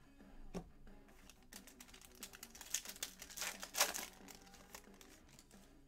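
Foil wrapper of a Panini Select basketball card pack being torn open and crinkled by hand: a run of crackling from about one and a half seconds in, loudest near four seconds.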